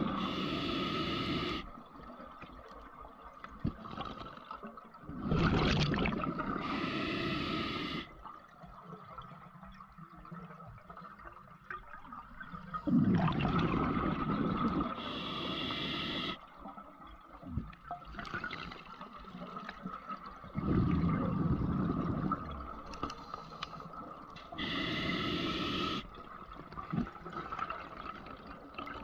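Scuba breathing through a regulator underwater: a hiss on each inhale, then a rush of exhaled bubbles, in slow breaths repeating every several seconds. A faint steady tone runs underneath.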